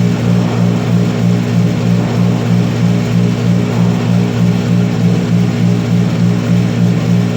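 Loud steady low drone, one of its tones pulsing about three times a second; no gunshots.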